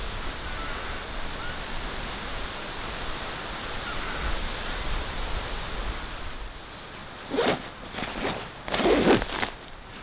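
Steady rushing of wind and surf, which thins out after about six and a half seconds. It is followed by four short, loud rustling sounds, the loudest near the end.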